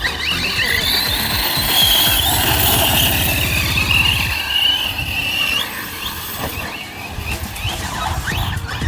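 Electric off-road RC buggy running on dirt, its motor and gears giving a high whine that rises and falls with the throttle, over rough low rumbling.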